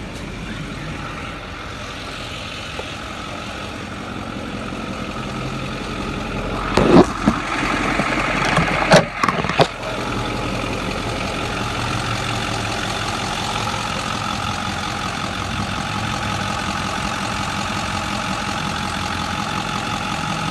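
Ford 6.4 L Power Stroke V8 diesel idling steadily, running smoothly. A few sharp knocks come about seven and nine seconds in, and the engine is heard louder from about ten seconds in.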